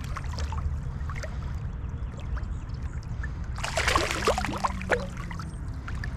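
Steady rush of river water around a wading angler, with a burst of splashing about three and a half seconds in that lasts about a second and a half, as a hooked smallmouth bass is brought in at the surface.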